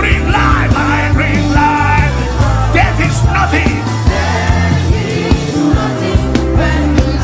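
Worship music with sustained low bass notes and a voice rising and falling over it.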